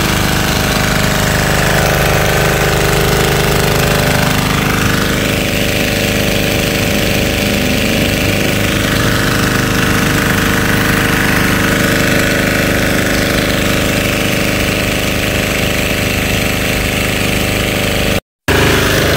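Small single-cylinder diesel engine of a high-pressure washer running steadily and driving the pump, with the hiss of the high-pressure water jet. The sound drops out briefly near the end.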